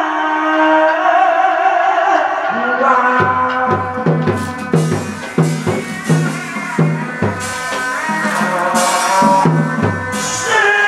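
Hát bội ensemble music. A held melodic line gives way, about three seconds in, to a steady drum beat of roughly two strokes a second, with percussion crashes over it.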